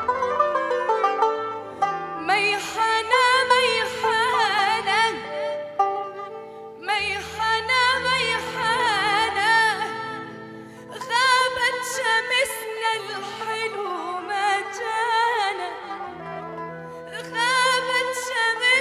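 Music: a voice singing long phrases with a strong, wide vibrato, over plucked-string accompaniment.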